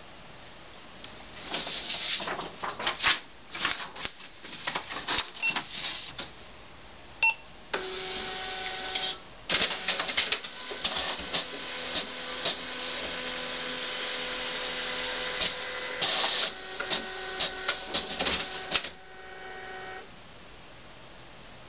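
Printer at work: first a clatter of irregular clicks and rattles, then a steady motor whine of several tones with clicking over it, which stops near the end.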